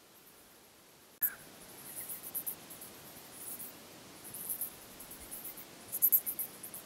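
Insects, crickets or bush-crickets, chirping at dusk in repeated bursts of very high-pitched pulses, loudest near the end. A sudden click about a second in starts the chirping.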